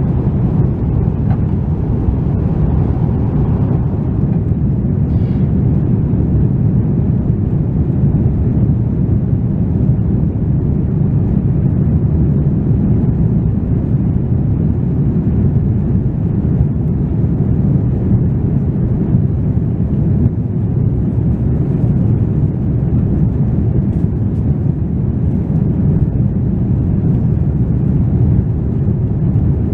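Airbus A330-300 airliner in flight heard from inside the cabin: a loud, steady low rumble of jet engines and rushing air, unchanging throughout.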